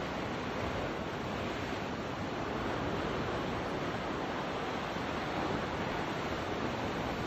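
A steady wash of ocean surf on the shore, mixed with wind.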